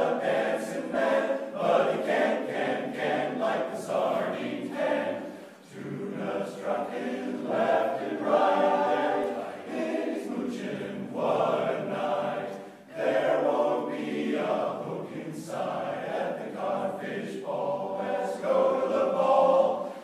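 Men's barbershop chorus singing a cappella in close four-part harmony, with two brief breaks between phrases.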